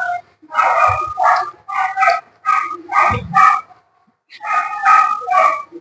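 A dog barking repeatedly, about three short barks a second, with a brief pause a little before four seconds in.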